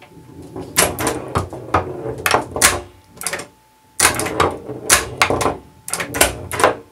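Solenoid-driven 3D-printed pinball flippers clacking again and again as they fire, with a steel ball rolling and knocking across a chipboard playfield. The clacks come in quick irregular runs, with a brief lull a little past the middle.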